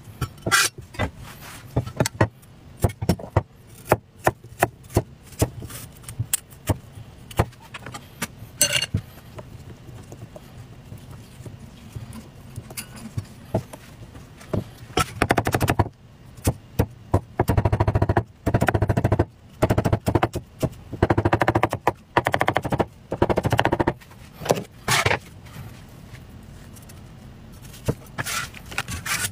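Cleaver blade striking a wooden chopping block as a peeled root vegetable is cut: separate sharp knocks through the first half, then quick runs of rapid chopping strokes, each a second or two long, from about halfway.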